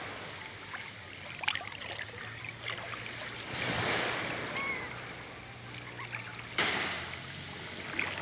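Small waves of a calm sea washing in over sandy shallows, swelling about four seconds in and surging again suddenly near the end.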